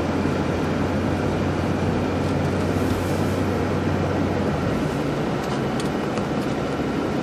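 Car interior noise while driving: tyres on the road and the engine running steadily. The low hum eases off about two-thirds of the way in.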